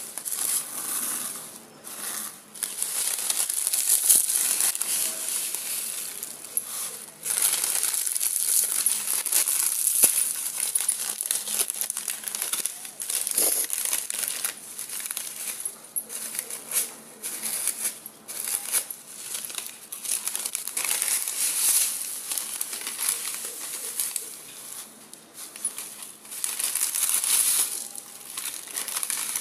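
Plastic packet of thin dry vermicelli crinkling as a hand squeezes it and breaks the brittle strands out onto a plate, in uneven rustling spells with short pauses.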